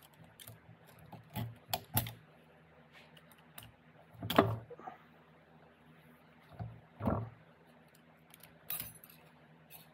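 Steel transfer-case parts clinking and clicking as they are handled on the bench, with two louder knocks about four and a half and seven seconds in.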